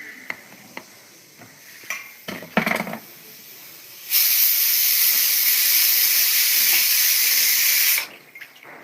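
A loud steady hiss that starts suddenly about four seconds in, lasts about four seconds and cuts off suddenly. A few short clicks and knocks come before it.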